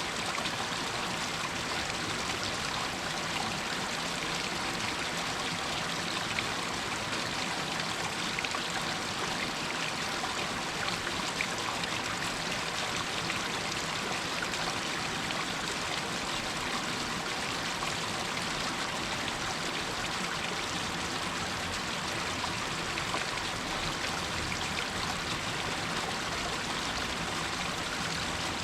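Water running and trickling down over rocks in a small stream, a steady splashing rush with faint small drips and splashes in it.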